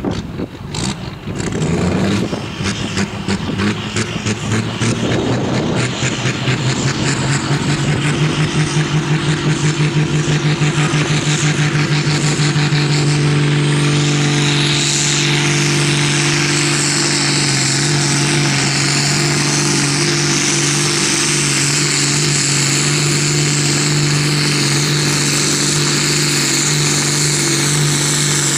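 Ford pulling tractor's engine at high revs, hauling a weight-transfer sled down the pulling track. It runs rough and uneven for the first few seconds, pulses as it builds, then holds a steady, strong full-throttle note from about halfway on.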